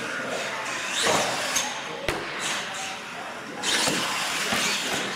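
R/C monster truck driving across a concrete floor, its motor revving up and down, with a sharp knock about two seconds in.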